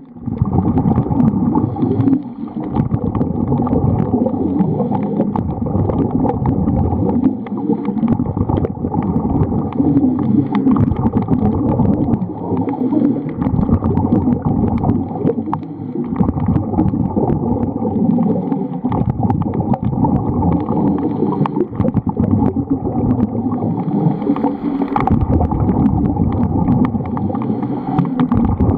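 Muffled underwater rumble and gurgling of water and bubbles, picked up on an underwater camera's microphone, with brief lulls every few seconds.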